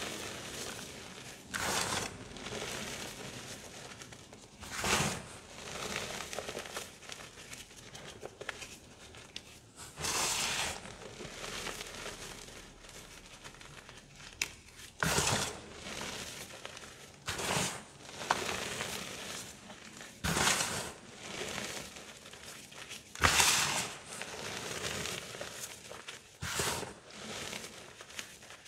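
Hands squeezing and crumbling soft, dusty reformed gym chalk into powder: a gritty crunching and crumbling, with louder squeezes every two or three seconds.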